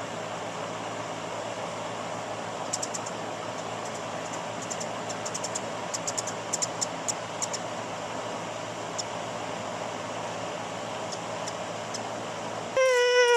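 Steady hiss with a low hum, a scatter of light high-pitched ticks in the middle, then near the end a dog's loud, long whine that slowly falls in pitch.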